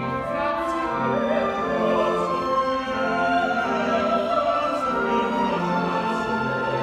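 Live operetta music: a theatre orchestra playing while singers sing over it, their voices wavering with vibrato.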